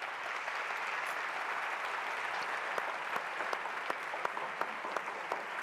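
Audience applauding, a dense steady clapping in which single claps stand out more near the end.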